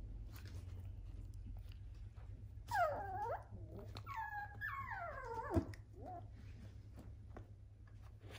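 Dachshund whimpering: three short, high whines about three, four and five seconds in, each falling in pitch, with faint clicks between them over a low steady hum.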